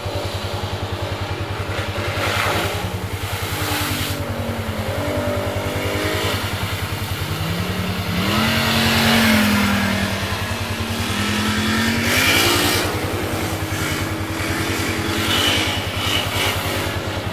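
ATV and UTV engines revving as they drive through deep mud puddles, the engine pitch rising and falling, with loud surges of splashing and spraying water, the biggest about halfway through and again a few seconds later.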